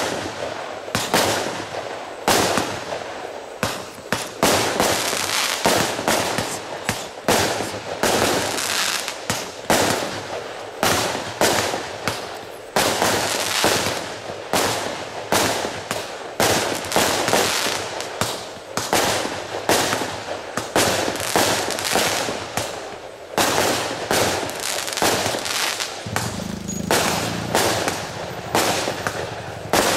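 A consumer fireworks battery (cake) of 50 shots of 20 mm calibre firing in rapid succession: one sharp report after another, about one to two a second, as each small shell launches and bursts into stars.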